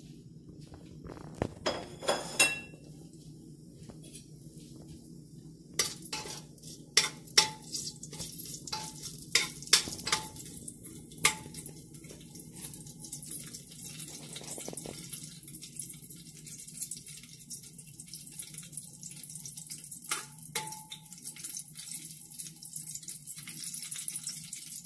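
Whole spices (cinnamon, cardamom, bay leaf) sizzling in a little hot oil in an aluminium pressure cooker as they are tempered, with sharp clicks and taps against the pot. The sizzle sets in about six seconds in. The clicks come thickest over the next five seconds, with a few more near the end.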